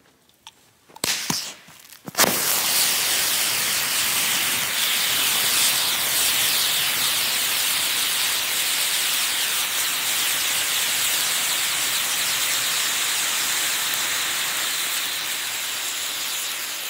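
Thermite grenade filled with TH-3 thermate burning: after a couple of short pops as it catches, a loud, steady rushing hiss starts abruptly about two seconds in and fades slowly near the end.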